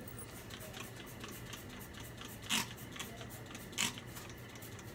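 Trigger spray bottle of cleaner spraying twice, two short hissing squirts a little over a second apart, with faint small clicks around them.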